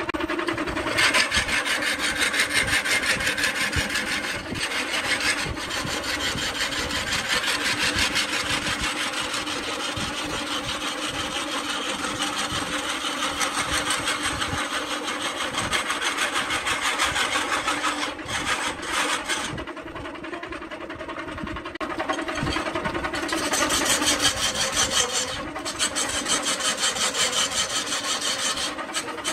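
A turning tool cutting a spinning coconut palm log on a belt-driven wood lathe: a steady rough rasping over the lathe's running hum. The cutting eases off for a few seconds about two-thirds of the way through, then comes back louder.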